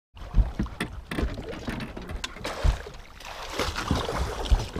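Handling noise of a musky rod and baitcasting reel held close to the microphone: irregular knocks, low thumps and rubbing as the reel is cranked against a hooked musky.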